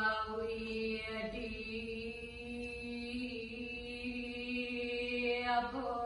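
A single voice chanting a sloka in the Dharma Gita style, in long drawn-out held notes. The pitch steps a little about a second in and again near the end.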